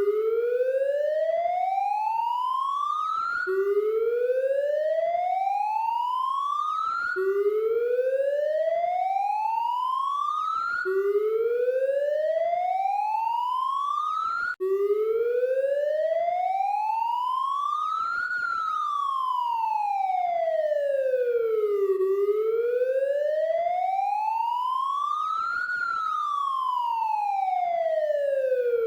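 Police siren sounding continuously. First it makes four rising sweeps, each climbing for a few seconds and snapping back to low pitch. About halfway through, after a momentary dropout, it switches to a slow wail that rises and falls twice.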